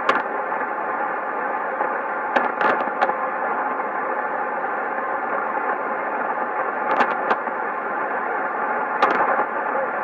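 Sony ICF-2001D shortwave receiver tuned to a weak AM broadcast on 3375 kHz in the 90-metre tropical band. It gives a steady hiss of band noise, broken by a handful of sharp static crashes in small clusters.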